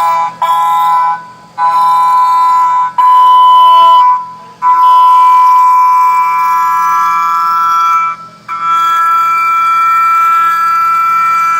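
CNC mill cutting a pocket with a hollow back side, the thin unsupported material ringing under the cutter in a loud, high, steady squeal, typical of chatter. The squeal comes in stretches of a few seconds that break off briefly and resume, its pitch stepping higher in the later stretches.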